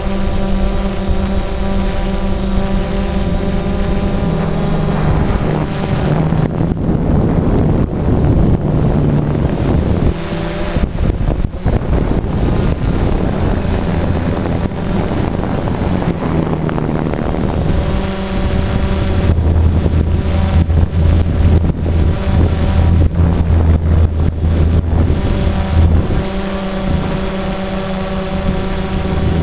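DJI Phantom quadcopter's motors and propellers droning, heard close up through the GoPro mounted on the drone, the pitch shifting as the motors change speed. A rushing noise swells over the drone from about six to twelve seconds in.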